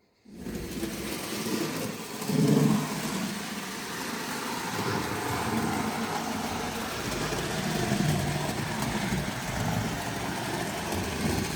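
Model railway locomotive running steadily round the track pulling Tri-ang car transporter wagons: a continuous motor whir and wheel rumble on the rails.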